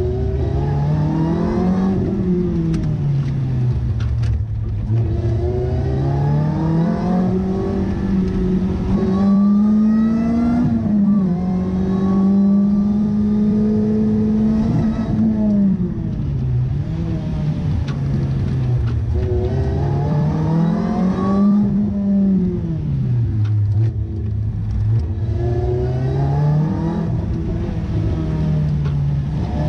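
Lotus Elise's four-cylinder engine heard from inside the cabin, driven hard: its note climbs under acceleration and drops away on braking several times over, and is held high and steady for a few seconds around the middle.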